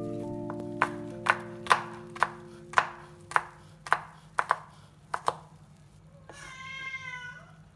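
Knife chopping on a cutting board, about two strokes a second, stopping a little over five seconds in, under soft background music.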